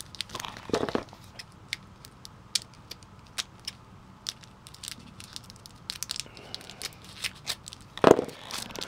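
Plastic wrapper of a 1989 Fleer baseball card rack pack being handled and pulled open, crinkling and crackling with scattered small clicks. There is a louder crinkle about a second in and another near the end.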